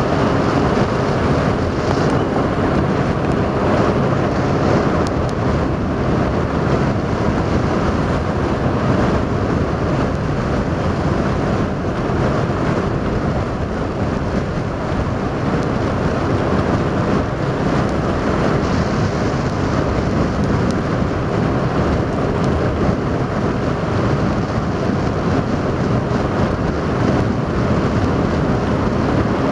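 Motorboat under way: the motor drones steadily, mixed with wind buffeting the microphone and the rush of water.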